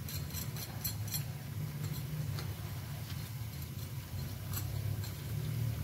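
Pakoras deep-frying in hot oil: quick crackles and ticks over a low steady rumble, with clicks of metal tongs turning the fritters. The crackle is the sound the cook points to as showing the pakoras are frying crisp.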